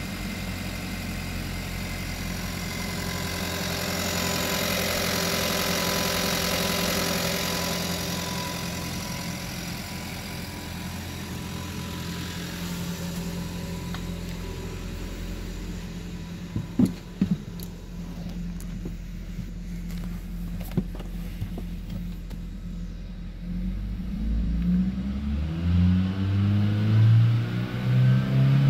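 Hyundai Kona's 1.6-litre turbocharged four-cylinder petrol engine idling steadily in a sale test of the engine, which is rated as running good. A couple of short knocks come about halfway through. In the last few seconds the engine is revved up and down repeatedly, to about 4,000 rpm.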